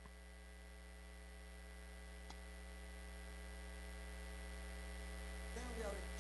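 Steady electrical mains hum in the microphone and sound system, with a thin high tone above it, slowly growing louder; a faint voice comes in near the end.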